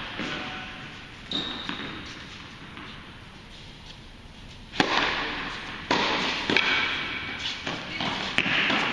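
Tennis ball struck hard by a racket on a serve about five seconds in, then several more sharp racket hits and ball bounces in quick succession as the rally goes on, each ringing out in a large hall.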